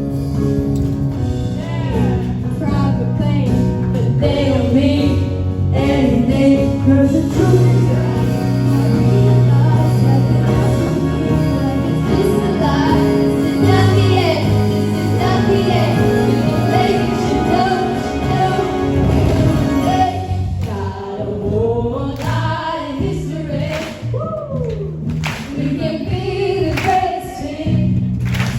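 Background pop song with singing over a steady bass line; the accompaniment thins out about two-thirds of the way through while the vocals carry on.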